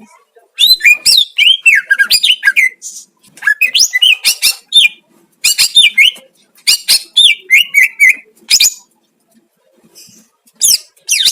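Cucak ijo (green leafbird) singing loud, rapid, varied phrases of sweeping whistles and chirps, breaking off for about two seconds near the end and then starting again.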